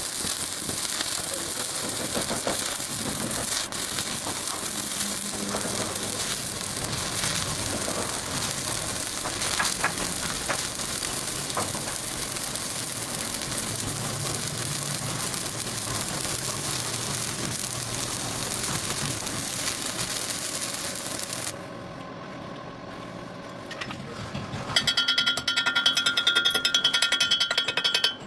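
Welding arc crackling steadily for about twenty seconds, then cutting off. A few seconds later a louder, harsh buzzing with a high whine starts near the end.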